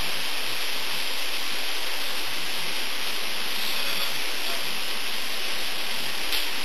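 Steady rushing hiss with no distinct events.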